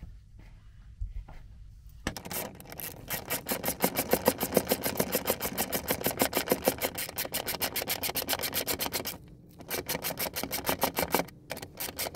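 Ratchet wrench clicking rapidly and evenly as a nut is run down onto a square washer on a bolt through a timber beam. The clicks start about two seconds in and run for about seven seconds, pause briefly, then come in two shorter runs.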